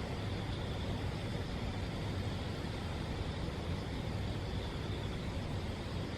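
Steady outdoor background rumble, heaviest in the low end, with no distinct events.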